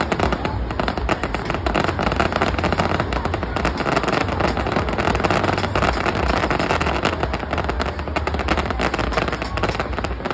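Fireworks display: a dense, continuous crackle of many small rapid pops, with a steady low rumble beneath.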